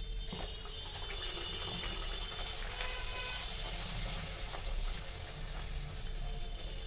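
A puri deep-frying in hot oil: a steady sizzle of bubbling oil as the dough puffs, with a few light clicks of a perforated steel spoon pressing it down.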